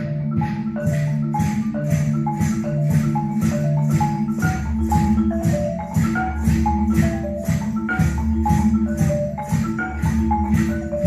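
Percussion ensemble playing, led by marimbas and other mallet keyboards in a steady run of quick, even strokes with a pitched melody. A low bass part joins about four and a half seconds in.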